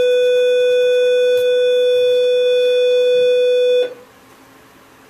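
A loud, steady electronic beep at one pitch, held for nearly four seconds and then cutting off suddenly.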